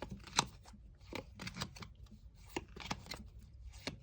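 Baseball trading cards being flipped through by hand: a run of irregular light flicks and slides of card against card, the sharpest about half a second in.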